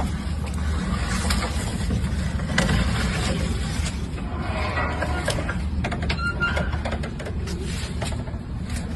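Steady low rumble with scattered clicks and short knocks, and a few brief mid-pitched sounds around the middle.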